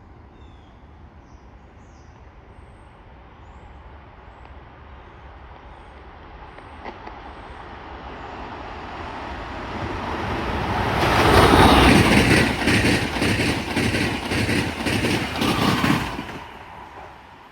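A train approaching and passing at speed: a rising rush that is loudest for about five seconds, with a rapid run of wheel clicks over the rail joints, then drops away sharply.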